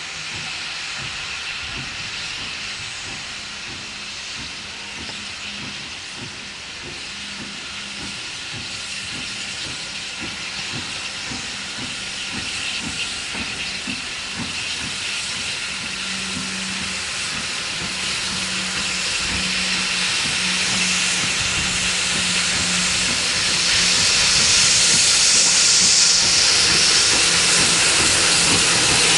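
Steam hissing from LNER N2 0-6-2 tank locomotive No. 1744 as it moves slowly up, its cylinder drain cocks open. It is a steady hiss that grows louder as the engine draws near, with a low steady tone coming in about halfway.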